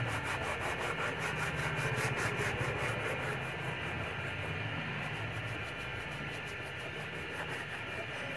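Sandpaper rubbed by hand back and forth over a scraped plastic car bumper, about five strokes a second with a short pause about halfway, sanding down the damaged paint before repainting.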